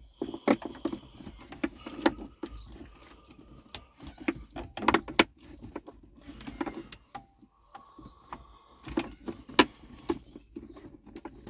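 Irregular sharp clicks and taps of hands working wiring under plastic trim: insulated spade connectors being pushed onto the terminals of a 12-volt accessory socket, with the plastic console panel knocking and rustling.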